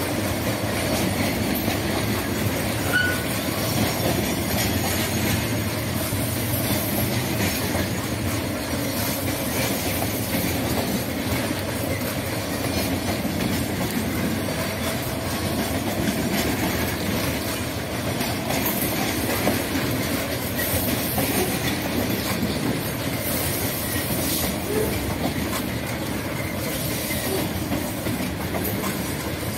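Loaded grain hopper cars of a long freight train rolling past, a steady rumble of steel wheels on rail. Now and then a brief, faint wheel squeal sounds.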